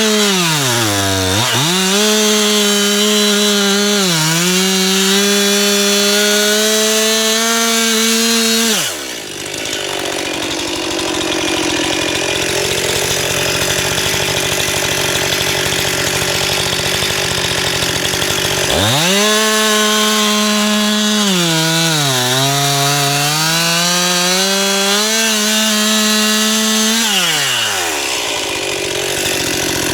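Stihl MS 261 two-stroke chainsaw, most likely bucking a log, running at high revs with brief dips in pitch. About nine seconds in the revs drop away to a lower, rougher running for roughly ten seconds, then climb back up, and they fall low and rise again near the end.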